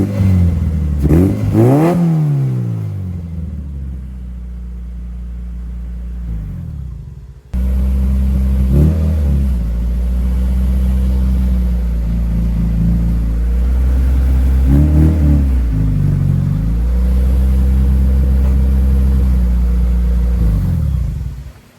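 Car engine revved twice in quick succession, then idling steadily with a couple of lighter blips of the throttle; the sound drops and jumps back up abruptly about seven and a half seconds in.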